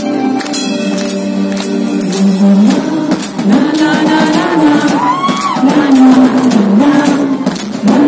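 Live band playing loud amplified music: a drum kit keeping a steady beat under keyboard parts.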